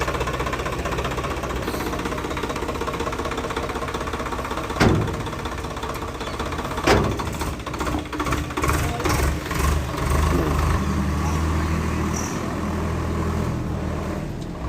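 Swaraj 855 tractor's diesel engine running at idle, with two sharp metallic knocks about five and seven seconds in. After the knocks the engine gets louder and uneven for a few seconds.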